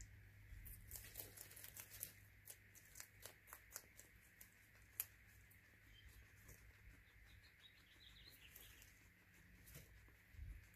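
Guinea pigs chewing dry pellets and shifting in wood-shaving bedding: faint, irregular crunching clicks, thickest in the first few seconds, with one sharper click about five seconds in.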